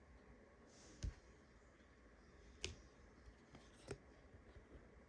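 Three faint, sharp clicks of Panini Prizm trading cards being handled and flicked through one at a time, spaced about a second apart.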